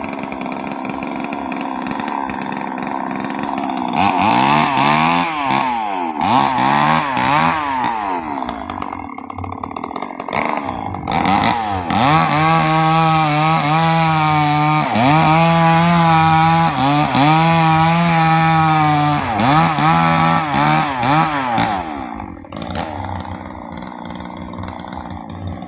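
Chainsaw cutting sengon wood, its engine revving up and down repeatedly, then held high under load with short dips. It falls back to a low idle near the end.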